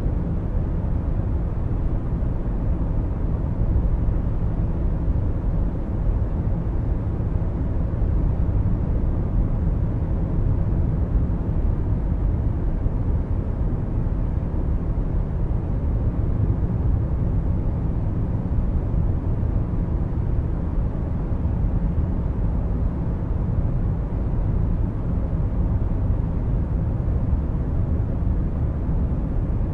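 Steady low rumble of a car on the move: road, tyre and engine noise picked up by a dashcam.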